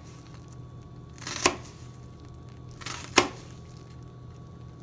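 Kitchen knife cutting through an onion on a plastic cutting board while mincing it: two slow cuts a little under two seconds apart, each a short rising scrape that ends in a sharp tap of the blade on the board.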